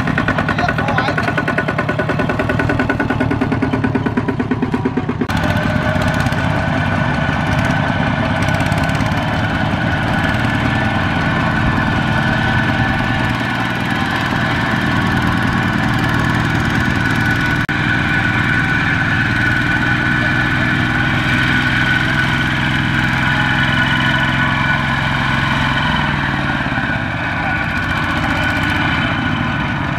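Two-wheel walking tractor's single-cylinder diesel engine running steadily under load as it hauls a trailer piled with rice sacks through mud and up a bank. The engine sound changes abruptly about five seconds in.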